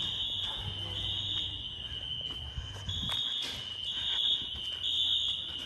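Building fire alarm horns sounding the temporal-three evacuation pattern: half-second high-pitched blasts in groups of three, with a longer pause between groups, over a steady high tone.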